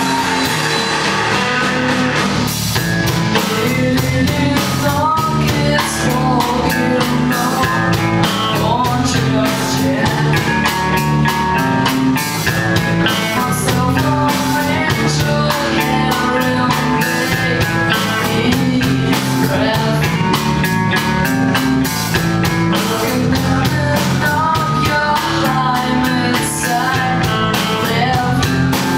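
A rock song playing, with electric guitar, a drum kit keeping a steady beat, and singing.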